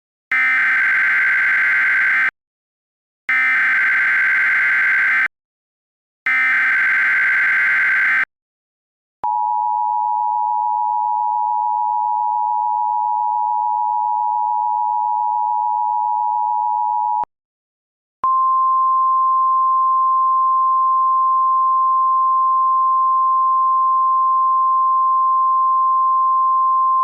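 Emergency Alert System alert tones. First come three two-second bursts of screeching SAME header data tones, about a second apart. Then the two-tone EAS attention signal plays steadily for about eight seconds. After a short gap, a single steady warning tone begins.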